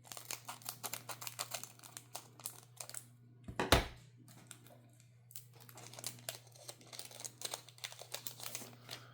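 Crinkling of a foil Magic: The Gathering booster-pack wrapper as it is torn open, with one loud sharp rip about three and a half seconds in, then more crinkling as the pack is handled.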